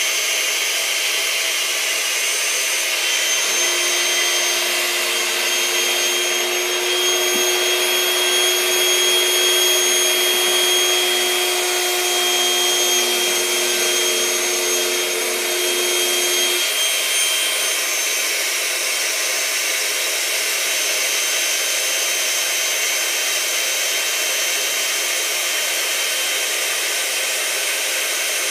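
Small electric air pump running steadily, drawing the air out of a large inflatable beach ball to deflate it. A steady low hum sounds over it for a stretch in the middle.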